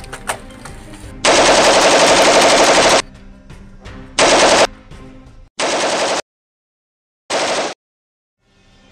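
Automatic rifle fire, a dubbed machine-gun sound effect: one long burst of nearly two seconds, then three short bursts. The sound cuts to dead silence between the last two.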